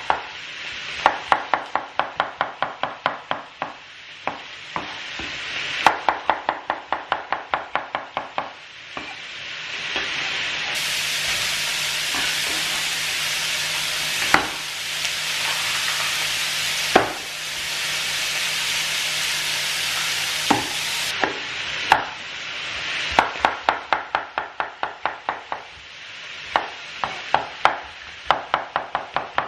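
Chef's knife chopping a red pepper on a wooden chopping board, in quick runs of about four or five strokes a second. In the middle stretch there is steady sizzling from meatballs and onion frying in a wok, with a few single knocks.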